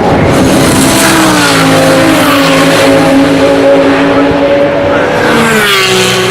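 GT3 race car engine at full song, its pitch falling about a second in, holding steady, then dropping again near the end as the car goes by or lifts off.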